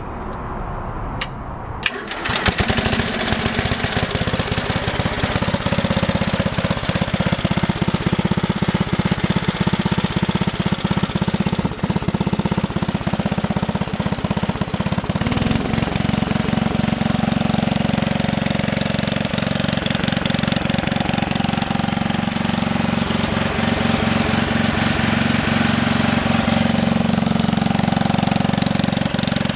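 A 1966 Bolens 650 garden tractor's engine fires up about two seconds in and then runs steadily with a rapid firing beat. Its note shifts about halfway through.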